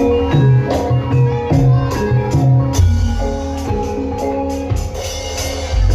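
Javanese gamelan music for a jaran kepang horse dance: a rhythmic pattern of struck metal-keyed percussion over drums, with a deep sustained low tone coming in near the end.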